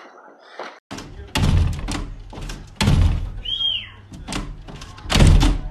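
Heavy thuds on a glass sliding door as a dog pushes and jumps against it, three loud ones about a second and a half apart with lighter knocks between, and a brief high squeak in the middle.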